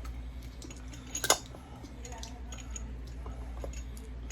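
Small metal lamp parts clicking and clinking as the lamp cord's two wires are threaded through a new socket cap, with one sharp click about a second in, over a steady low hum.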